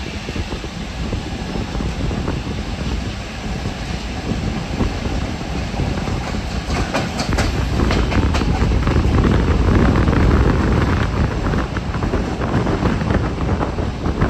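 Train running over a rail bridge: a steady rumble of wheels on the track, growing louder toward the middle, with clicks and clatter from the rail joints coming in about halfway through.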